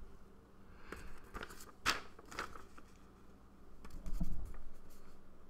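A textbook's pages rustling as it is handled and held up, with a few sharp clicks and a duller bump about four seconds in.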